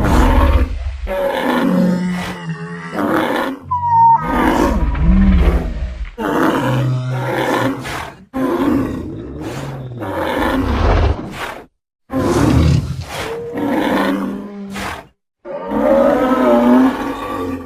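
Stegosaurus creature sound effects, made from stegosaurus and woolly rhinoceros sounds: a series of about six deep roars and bellows, one after another with short breaks.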